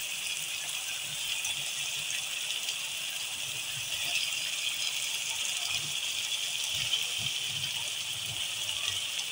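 Steady hiss of tomato-onion masala sizzling and simmering in a pot on a gas stove. From about halfway through come soft low thuds as chunks of potato and eggplant are dropped into the pot.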